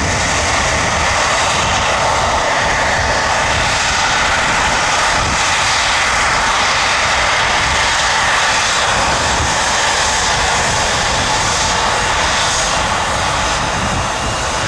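Jet airliner's engines running steadily while it taxis.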